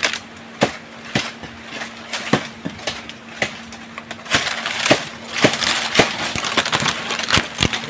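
Dry nipa palm fronds and stalks crackling and snapping as they are pushed aside and handled: irregular sharp cracks, getting denser with rustling over the second half.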